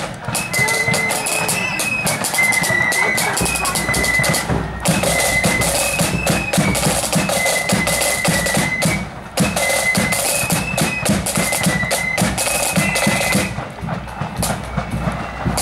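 Loyalist 'blood and thunder' marching flute band playing: shrill flutes carry the tune over fast snare drumming and bass drum beats. The drumming eases off near the end.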